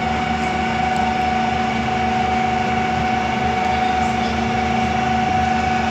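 Davit winch motor running steadily with a constant whine and a lower hum, hoisting the rescue boat back aboard.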